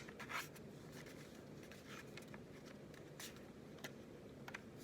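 Faint handling of a small plastic doorbell camera: a short scrape about a third of a second in, then a few light clicks.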